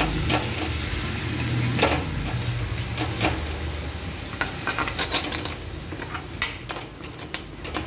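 A metal ladle scraping and knocking against a metal kadhai as yogurt is stirred into fried masala, which sizzles steadily in the hot oil underneath.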